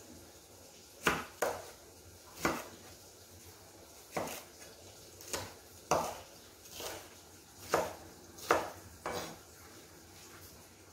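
Chef's knife cutting a green bell pepper on a wooden cutting board: about a dozen sharp, irregularly spaced knocks of the blade on the board, stopping about nine seconds in.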